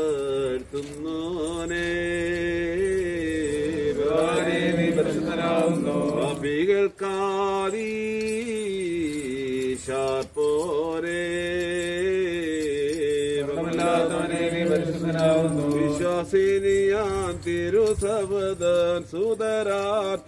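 A man chanting a prayer of the Orthodox liturgy in long, melodic phrases, holding and bending notes, with short breaths between phrases.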